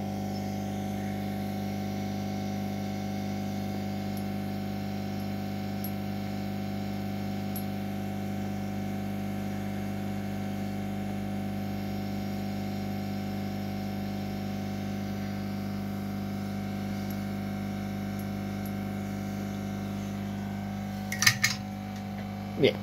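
Steady hum from running bench electronics-repair equipment, even and unchanging, with a few short clicks near the end.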